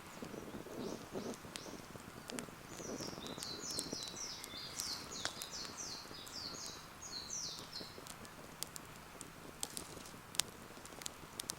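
Wood campfire crackling with scattered sharp pops, while a bird sings a quick run of repeated high chirping notes from about two seconds in until about eight seconds.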